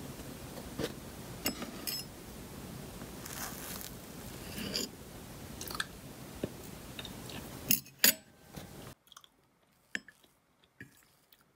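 A metal fork clinking and scraping on a ceramic plate while cutting into a slice of cream cake, with chewing; scattered sharp clicks, the loudest about eight seconds in.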